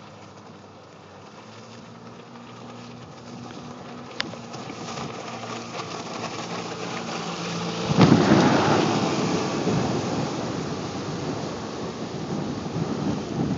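Johnson 40 hp outboard motor running at speed, a faint steady drone that grows louder as the skiff closes in. About eight seconds in, a sudden loud rumbling rush of wind and water noise takes over and covers the engine.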